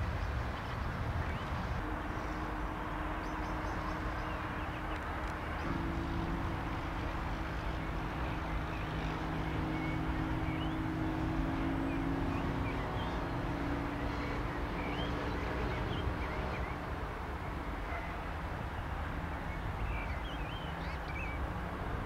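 Cessna CitationJet CJ1's twin Williams FJ44 turbofans on the takeoff run, heard at a distance as a steady low rumble with a few held tones that fade out after about sixteen seconds. Small birds chirp over it.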